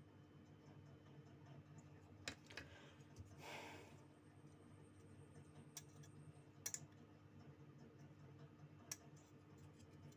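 Near silence over a steady low hum, broken by a handful of sharp isolated clicks and a short scrape about three and a half seconds in, from small repair tools being handled on a mobile phone.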